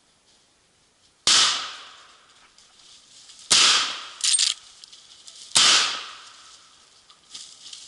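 Three rifle shots from a Marlin .45-70 lever-action rifle, about two seconds apart, each with a short fading echo. Between the second and third shots comes a brief metallic clatter as the lever is worked to chamber the next round.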